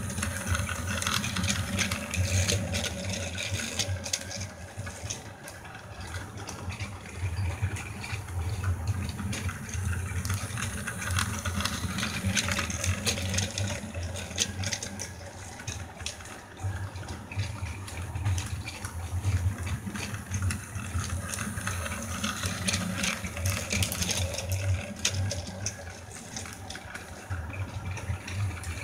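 Battery-powered Plarail toy freight train running around its plastic track: the small motor and gears whir steadily under a clicking rattle of wheels and cars. The sound swells and eases as the train circles the loop.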